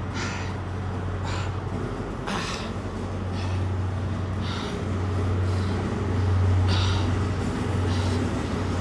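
Heavy, panting breaths close to the microphone, one about every second, over a steady low hum.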